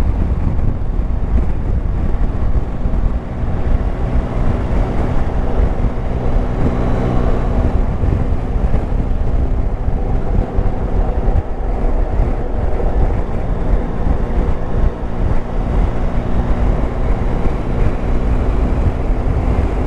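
Yamaha Tracer 9 GT's 890 cc inline three-cylinder engine running at a steady pace on the move, under heavy wind noise on the helmet camera's microphone.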